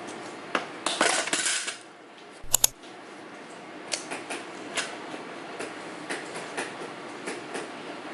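Scattered light clicks and knocks of small hard objects, with a longer clattering burst about a second in and a sharp double knock about two and a half seconds in.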